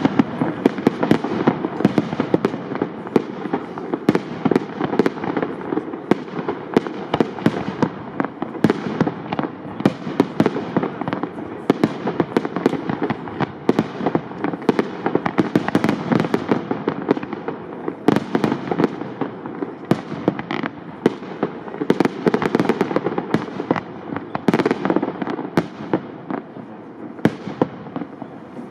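Aerial firework shells of up to 75 mm calibre bursting in a dense, rapid barrage of overlapping bangs over a continuous rumble, thinning out over the last few seconds.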